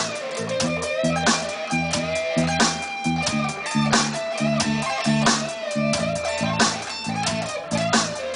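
Stratocaster-style electric guitar playing a Texas blues lead line of held, bent notes with vibrato. Behind it run a steady beat of about one and a half strikes a second and a moving bass line.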